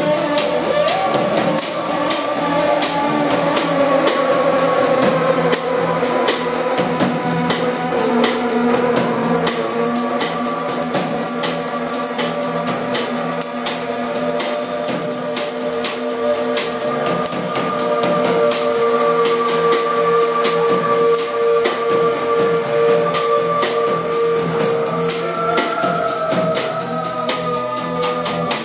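Experimental electronic music played live: a fast, uneven stream of clicks over held tones that drift slightly in pitch. A high, steady whine joins about a third of the way through.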